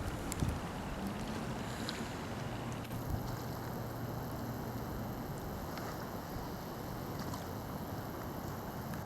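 Steady wind noise over the microphone outdoors, with a faint low steady hum from about three seconds in.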